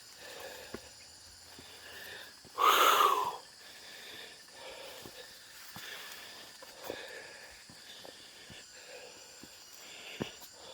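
A man breathing hard and wheezing, out of breath from climbing steep steps, with one loud exhale about three seconds in.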